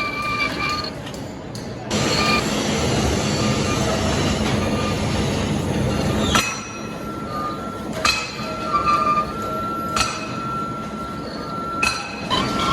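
Metal lathe cutting metal: a steady high whine from the cut, with a harsh grinding rush for about four seconds in the middle and a few sharp clinks.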